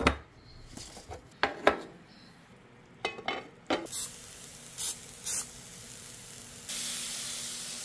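A few handling clicks and knocks, then a cut of meat sizzling on a hot tabletop electric grill pan: short spurts of sizzle at first, turning steady and louder near the end.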